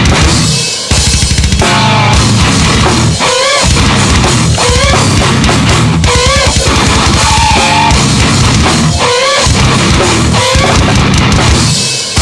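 Heavy metal band recording: distorted electric guitar, bass guitar and a drum kit with driving bass drum. A high, bending melodic phrase recurs about every one and a half seconds over the riff.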